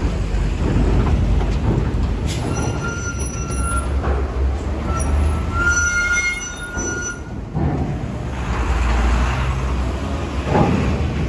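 A heavy vehicle rumbling slowly past, with a high squeal that comes in two stretches a few seconds in, typical of brakes squealing at low speed.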